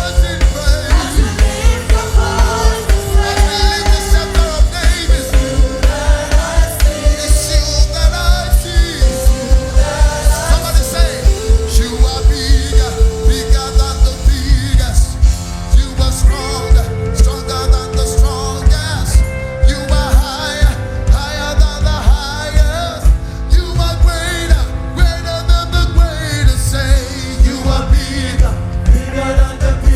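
Live church praise band playing upbeat gospel music with singing over a fast, steady bass-drum beat; the beat thins out about halfway through.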